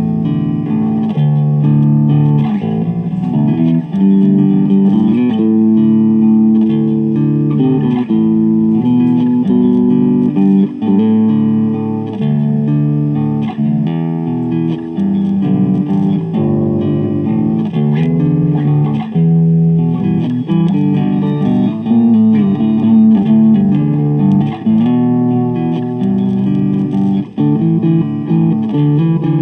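Samick electric bass guitar played through an amplifier: a continuous riff of low, sustained notes that change about every half second to a second. Its output jack and wiring are freshly repaired, and it plays cleanly.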